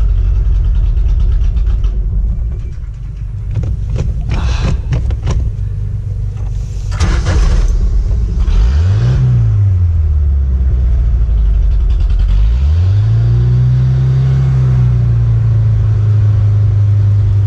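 MerCruiser 130 hp sterndrive engine running on the trailer, reluctant to keep going: its revs are pushed up and back down about halfway through, then raised again and held higher. A few knocks and rattles are heard in the first half.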